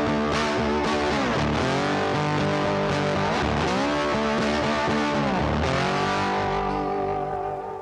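Background music led by guitar, with notes that bend up and down, fading out near the end.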